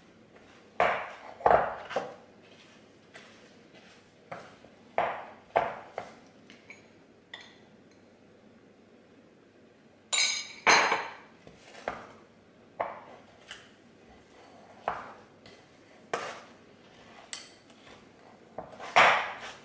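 A wooden spoon knocking and scraping against a glass mixing bowl in irregular strokes while stiff cookie dough is stirred. About ten seconds in, a spoon clinks against a small glass bowl as melted butter is added.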